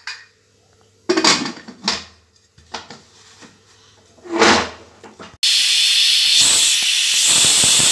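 A few metal knocks and clanks from the aluminium pressure cooker's lid and vent weight. Then, from about five and a half seconds in, a loud steady hiss: the pressure cooker whistling, steam venting under the weight once the cooker has reached pressure.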